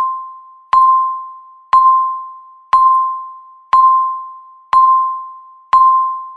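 Countdown timer beeping once a second: a single mid-pitched electronic tone with a sharp start that fades away before the next, six beeps in a row.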